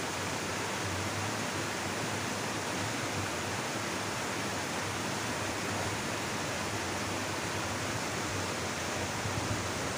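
Stream water rushing steadily over a small drop, a constant cascade.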